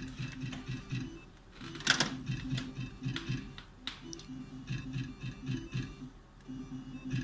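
Video slot machine sounds while the reels spin: a quick run of short, plucked-sounding electronic notes with clicking ticks above them, and one louder burst about two seconds in.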